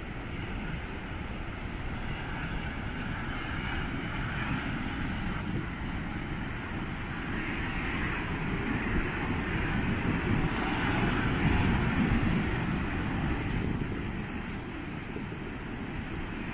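Wind buffeting the microphone with a low rumble, over the hiss of ocean surf breaking on the shore. The sound swells louder around the middle and eases again near the end.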